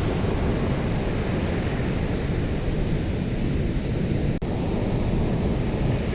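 Ocean waves washing on a shore, a steady deep wash with no single breaker standing out. The sound cuts out for a split second about four seconds in.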